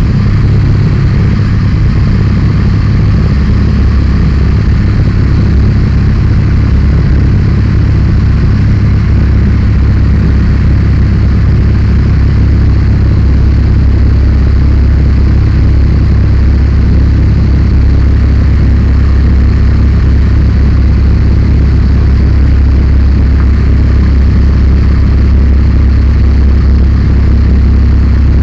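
Zlin Z 42 light aircraft's inverted six-cylinder piston engine and propeller running steadily in level flight, heard loud from inside the cockpit as a steady low hum with rushing air over it.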